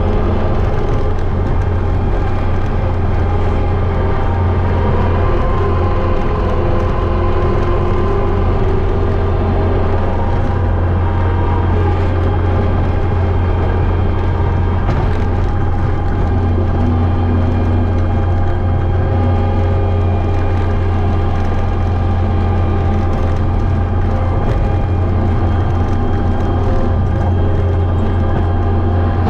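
Kubota SVL65-2 compact track loader's four-cylinder diesel engine running steadily under load, driving a hydraulic rotary brush mower through tall weeds and brush, heard from the operator's seat.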